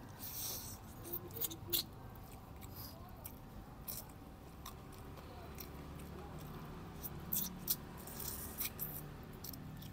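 People eating fried chicken and rice: chewing and crunching, with scattered short sharp clicks of spoons and dishes, mostly in the first two seconds and again from about seven seconds in.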